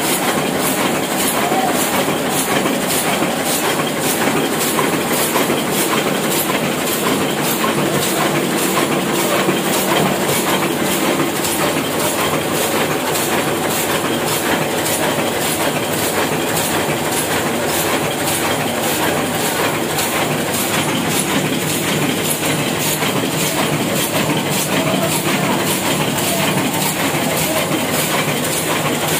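Old Hashimoto sheetfed offset printing press running at speed, a steady mechanical clatter with a regular beat several times a second as it feeds and prints sheets.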